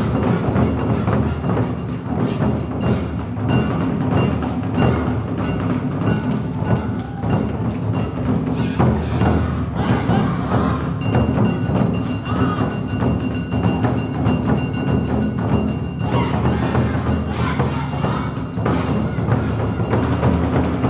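Awa odori festival music: taiko drums and a ringing kane hand gong keep a driving, steady beat for the dancers.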